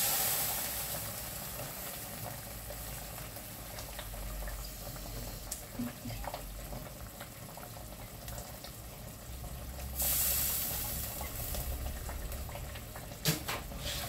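Coconut milk poured into a hot stainless-steel wok of beef stew, hissing loudly as it hits the pan and settling into a steady sizzling simmer. About ten seconds in the sizzle flares up again for a couple of seconds, and a metal spoon knocks against the wok a few times near the end.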